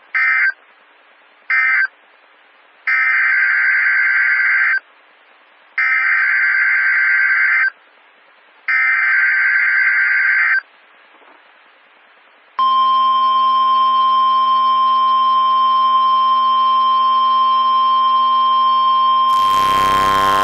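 NOAA Weather Radio Emergency Alert System tones: two short warbling data bursts that close the first warning, then three longer data bursts about a second apart, the coded header of the next warning. About twelve and a half seconds in, the steady 1050 Hz warning alarm tone starts, with a sweeping garble over it near the end.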